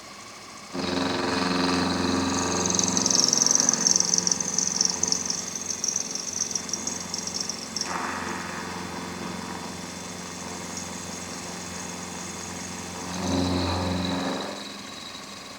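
A lathe or milling machine motor starts suddenly about a second in and runs with a steady hum. A high whine of the tool cutting metal rides on it for several seconds. The sound swells briefly near the end and then falls back as the machine stops.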